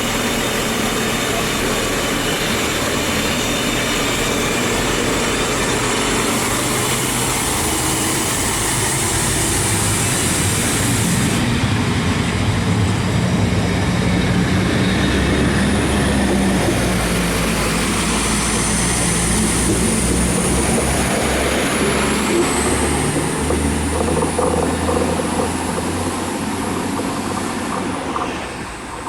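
Diesel railbus set of two SA137 units with a trailer car pulling out and running past, its engines running steadily. From about halfway in, a high wavering wheel squeal joins as the wheels take the curve, and the sound fades near the end.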